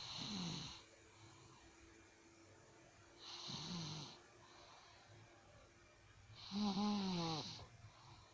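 A man snoring: three snores about three seconds apart, the last one the loudest and longest.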